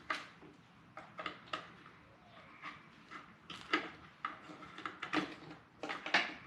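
Irregular clicks and light knocks of hard parts handled against a car door, as the replacement mirror's wiring is fed through the door of a Volvo 740.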